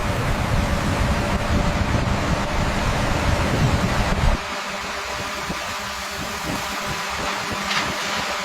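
Steady machinery noise with a deep rumble. A little over four seconds in it drops suddenly to a quieter engine-like running hum.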